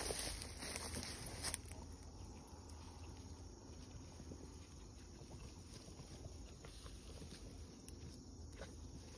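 Footsteps pushing through tall weeds and brush, rustling for about a second and a half and then stopping suddenly. Then faint, quiet outdoor background with a few small ticks.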